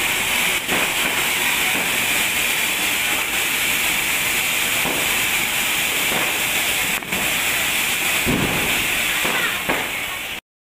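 Ground spinner firework (chakkar) burning: a steady, loud hiss of spraying sparks with a few faint crackles. It cuts off suddenly near the end.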